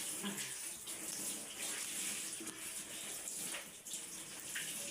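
Water running steadily from a kitchen tap, with a few light knocks.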